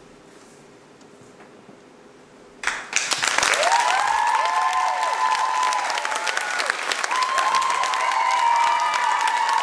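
Quiet for the first two and a half seconds. Then an audience bursts into loud applause, and cheering and whooping voices soon rise over the clapping as the dance piece ends.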